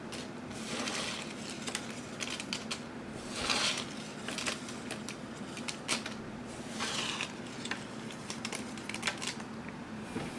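Paper handling: small scraps of sticker paper rustling and crinkling as they are peeled and pulled apart, with light ticks as pieces drop onto a wooden tabletop, over a faint steady hum.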